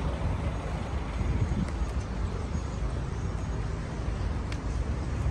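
Steady outdoor background noise: a low rumble of vehicle traffic with some wind on the microphone.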